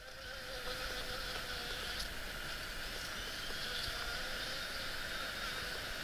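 European honeybees buzzing in flight around a kitchen exhaust vent, a steady hum that fades in during the first second.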